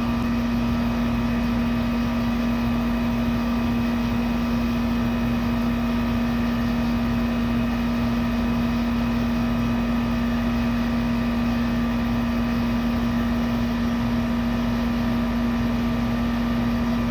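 Central air-conditioning system running with a steady hum and a constant tone, its compressor and fan running without change. It is freshly topped up with a little refrigerant so that it condenses rather than freezes.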